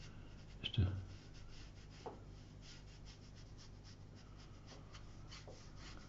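Faint strokes of a watercolour brush on paper, a run of light, short, scratchy swishes as a raw sienna undercoat is laid into the foreground. A brief louder bump comes about a second in.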